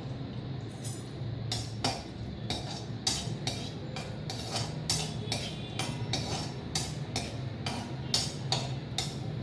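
A spatula clinking and scraping against a kadai as cashews are stirred in hot oil and ghee: irregular sharp taps, two or three a second, over a steady low hum.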